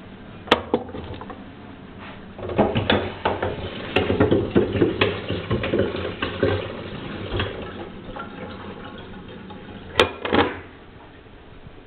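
Pomegranate seeds being pressed and worked with a metal utensil in a wire-mesh strainer over a glass bowl: a run of scraping and rattling of metal on mesh and glass. There is a sharp clink about half a second in, and two sharp clinks near the end as the strainer knocks against the glass bowl.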